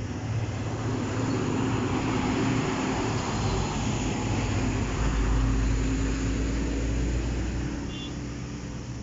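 A motor vehicle's engine running steadily with road noise. A deeper rumble joins about halfway through, and the sound grows louder through the middle before easing off near the end.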